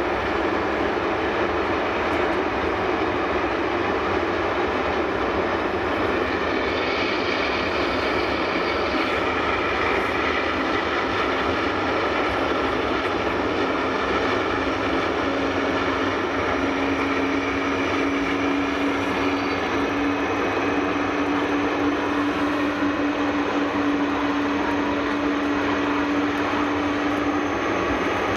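Boeing 747-400 jet engines running on the stand: a steady rushing noise with whining tones. A low steady tone comes in about halfway through.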